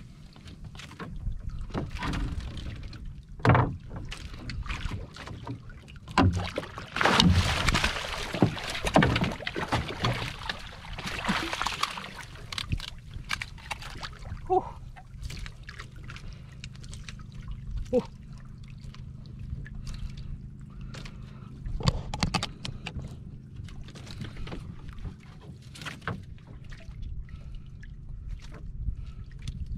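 Water splashing and sharp knocks against a small wooden outrigger boat as a needlefish is hauled in on a handline and lifted aboard, loudest over several seconds in the first half. After that there are scattered knocks over a low steady hum.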